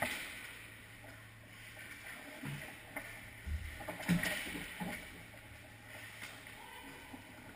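Ice hockey play around the net: skates scraping and swishing on the ice, with a few sharp knocks of sticks and puck about halfway through, over a steady low hum of the rink.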